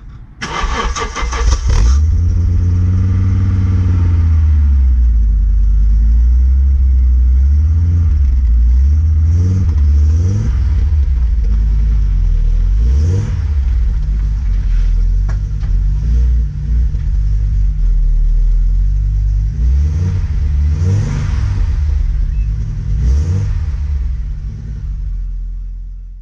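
Audi Coupe engine starting with a short rough burst, then running steadily with several blips of the throttle, its pitch rising and falling each time.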